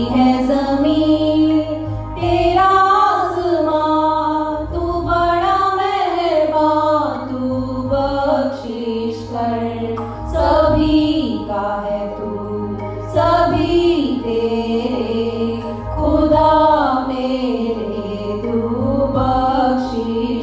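Women's voices singing a slow, melodic Hindi devotional prayer song, the lines gliding up and down in long phrases over a steady low hum.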